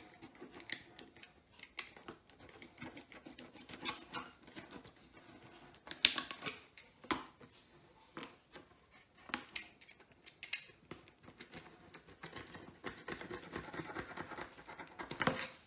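Utility knife slicing around a rubber radiator hose, guided along a hose clip: irregular scraping cutting strokes with a few sharper clicks.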